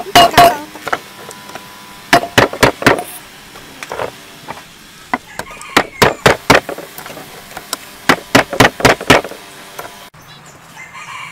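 Large kitchen knife driven point-first into the tin lid of a full can to hack it open: sharp metallic taps in quick bursts of three to six, about two seconds apart.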